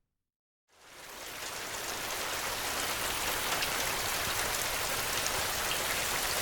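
Steady rain falling, an even hiss with scattered drop ticks, fading in from silence within the first second.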